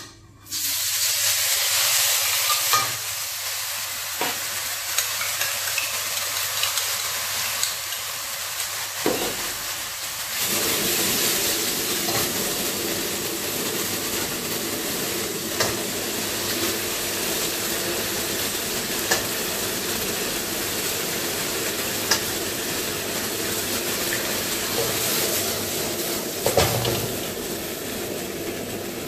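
Sauce and ingredients sizzling in hot oil in a steel wok over a gas flame. The sizzle starts suddenly as the sauce hits the oil and keeps up a steady loud hiss, with the metal ladle now and then clinking and scraping against the wok.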